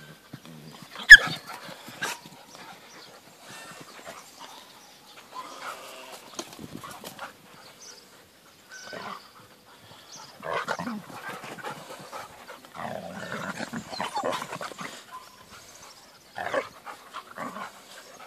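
Two Belgian Shepherd Tervuerens play-fighting, growling and snarling at each other in short bursts, with one short, sharp, loud sound about a second in.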